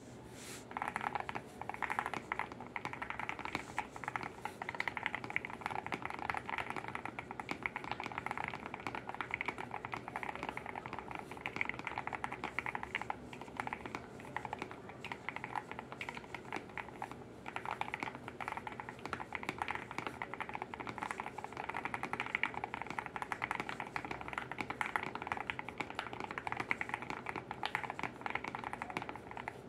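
Steady, continuous typing on an Ardor Patron GAS67 mechanical keyboard with lubed Gateron Yellow Pro linear switches, lubed Holee-modded stabilizers and a tape mod: a fast run of soft keystroke clacks.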